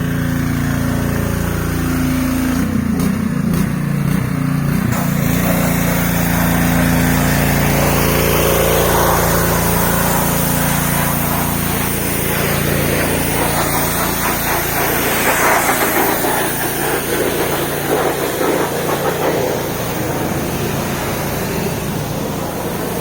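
Pressure washer's small engine running steadily, with the hiss of its water spray.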